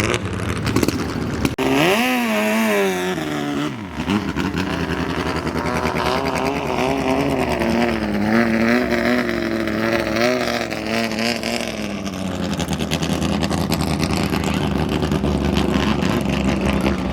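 Racing speedboat engine running hard, its pitch rising and falling as the throttle changes, then holding steadier in the second half.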